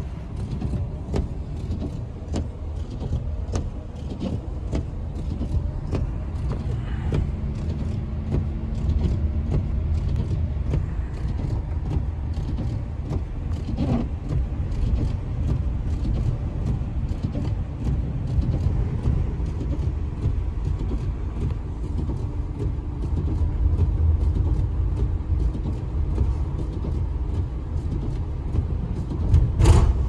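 Inside-the-cab sound of a vehicle driving on a snow-covered road: a steady low rumble of tyres and engine with frequent faint ticks, and a louder knock just before the end.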